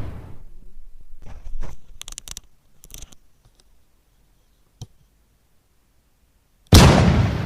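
A loud cannon-like blast sound effect dubbed over an air-rifle shot, starting suddenly near the end and fading away over more than a second. Before it, the tail of an earlier blast fades out, followed by a few light clicks and rustles and then dead silence.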